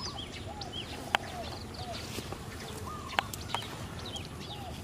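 Birds chirping and calling over and over in short arched notes, with a few sharp clicks.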